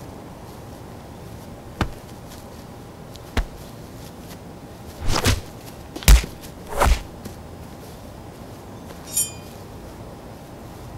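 A string of punch-and-hit sound effects: a sharp smack about two seconds in, another around three and a half seconds, a swishing double hit around five seconds, the loudest hit about six seconds in and another just before seven. Near the end comes a short hit with a high ringing to it.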